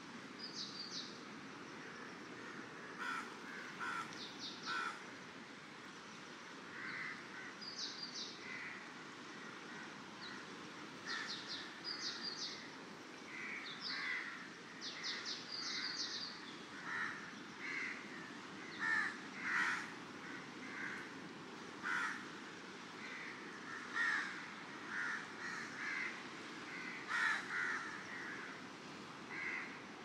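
Birds calling at dawn: short calls repeated again and again, louder in the second half, with quick high chirps of a smaller bird, over a steady low wash of ocean surf.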